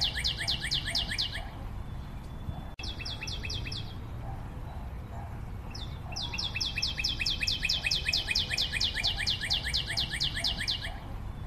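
A bird calling in fast runs of short, sharp chirps, about six a second. One run stops after a second and a half, a brief burst follows, and a long run starts about six seconds in. A steady low rumble lies underneath, with a single click just before the middle.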